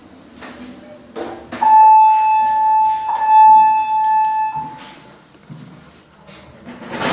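Evans lift's electronic buzzer sounding one steady, loud, high beep for about three seconds, with a few clicks just before it.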